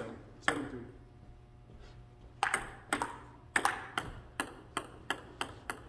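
Table tennis rally: a celluloid ping-pong ball clicking sharply off paddles and the table, a dozen or so hits. Near the end the clicks come quicker and quicker, like the ball bouncing down to rest once the point is over.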